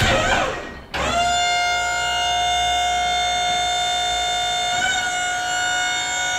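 Wood-Mizer LT40 sawmill hydraulics whining steadily under load as the log clamp is run up, with a brief dip in pitch and level about a second in.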